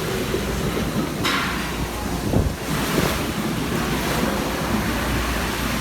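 Storm wind blowing across the microphone: a steady rushing noise with low buffeting rumble.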